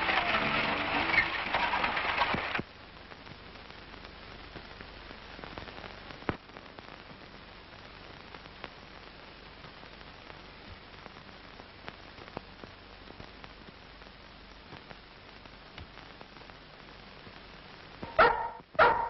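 Background music cuts off about two and a half seconds in, leaving a long stretch of steady hiss with scattered faint clicks from an old film soundtrack. Near the end a short, loud, sudden sound breaks in.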